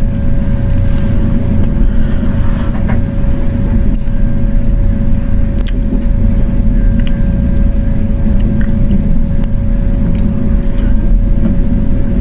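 Steady low rumble with a constant mid-pitched hum, the kind a fan or ventilation unit makes. A few faint, light clicks of small screws and tools on the laptop's frame sit on top of it.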